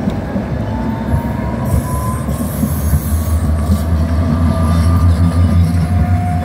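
Tatra KT4 articulated tram passing close by on its track. The rumble of its wheels on the rails grows louder to a peak near the end, with a thin whine gliding slowly upward in pitch.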